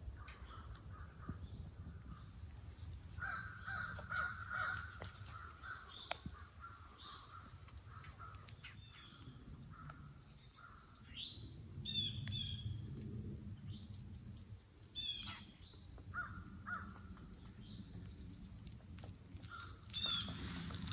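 Steady high-pitched insect chorus in the woods, with a bird calling repeatedly over it through the middle stretch.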